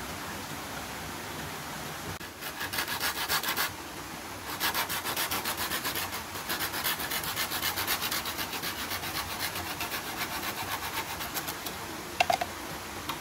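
A green bamboo pole being sawn by hand, the blade scraping back and forth in quick even strokes, about three a second: a short run, a brief pause, then a longer run. A brief high squeak near the end.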